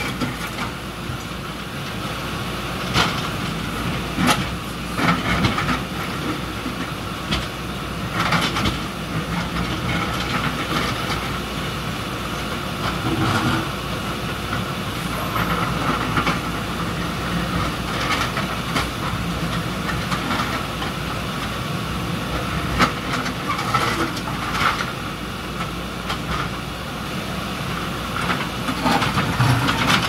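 Backhoe loader diesel engines running while the steel buckets knock and scrape against broken concrete, with irregular sharp clanks and knocks throughout. Water splashes as rubble drops into the stream near the start and near the end.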